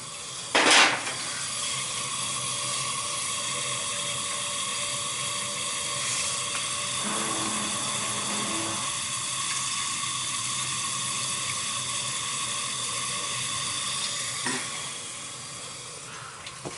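Water rushing through hydronic heating pipes: a steady hiss with a thin whistling tone that eases off near the end. A sharp knock comes under a second in.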